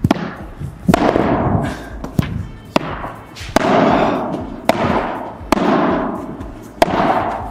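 Padel ball being rallied: sharp racket hits and bounces about once a second, each followed by a long echo.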